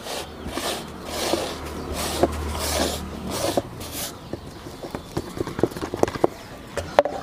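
Hands sweeping and rubbing dry ground chicken feed (cracked maize, broken wheat, broken rice and rice bran) across a plastic lid: repeated rasping swishes, then scattered light ticks and taps as the grains are brushed off into a bucket.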